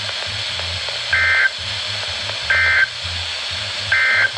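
Emergency Alert System end-of-message code on NOAA Weather Radio: three short bursts of two-tone digital data, about a second and a half apart, marking the end of the alert. Steady radio hiss runs beneath.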